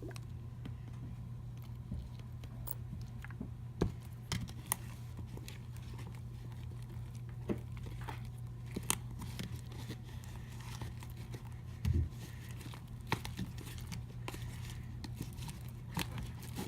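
A spoon stirring fluffy slime made of glue, shaving gel and contact lens solution in a bowl: scattered sticky clicks and squelches as the thickening slime pulls away from the bowl, over a steady low hum.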